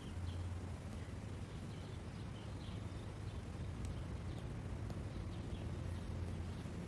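Outdoor background: a steady low hum with a few faint, short high chirps scattered through.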